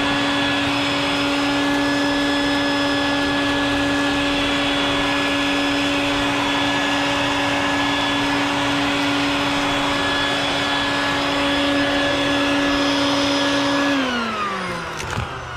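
Wet/dry shop vacuum running steadily as it sucks loose concrete debris out of a crack at the base of a concrete step. Near the end it is switched off and the motor whine falls in pitch and fades as it winds down.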